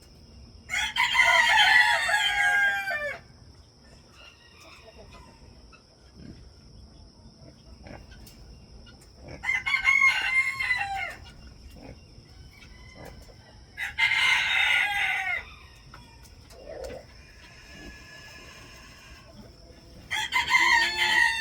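Rooster crowing four times, each crow about two seconds long and dropping in pitch at the end, over a faint steady high insect whine.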